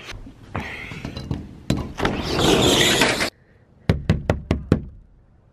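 Shuffling, rustling noise that cuts off suddenly about three seconds in, followed by a quick run of about five knocks on a door.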